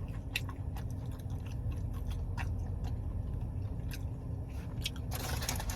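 Close-miked chewing of fried garlic cheddar cheese bites, with soft wet mouth clicks over a steady low rumble. A louder rustling noise starts near the end.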